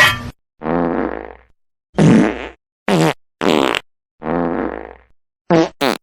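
A string of about seven separate fart sound effects, each under a second long with silence between them. Some are drawn out with a wobbling pitch, others short and sharp.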